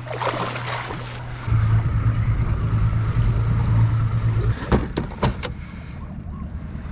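Steady low drone of outboard motor boats running on the river, swelling for a few seconds and then easing off. Near the middle come a few sharp knocks and clicks from the aluminum boat as the trolling-motor cables are handled.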